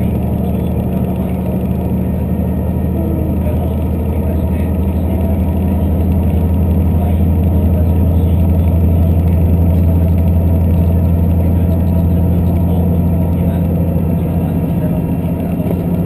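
Diesel limited express railcar heard from inside the passenger cabin while under way: a steady low engine drone with rolling wheel-on-rail rumble, swelling a little in the middle.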